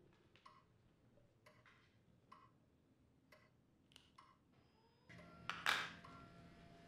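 A clock ticking about once a second, with a few extra soft clicks. About five seconds in, a steady hum starts, and half a second later there is a brief loud rushing sound.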